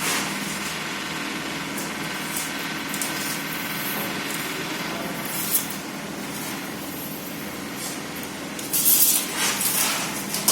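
CNC wood router running and cutting a door panel: a steady spindle whine under a hiss of cutting noise, with a few light ticks and a louder, rougher stretch of cutting near the end.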